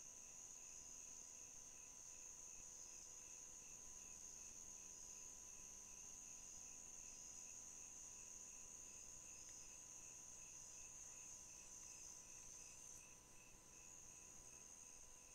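Faint chorus of night insects: crickets hold a steady high-pitched drone, with a lower, rhythmic chirping beneath it.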